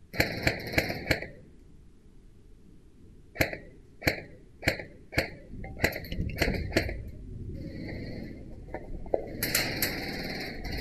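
Footsteps on a steel grating staircase and walkway, each step a sharp ringing metallic clank: a quick run of four clanks at the start, then steady steps about every half second, turning into a denser clatter near the end.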